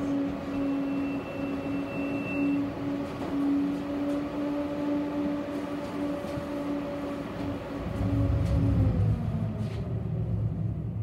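Tram running along its route: a steady electric hum over wheel-on-rail noise. About nine seconds in, the hum drops away and a heavier low rumble takes over.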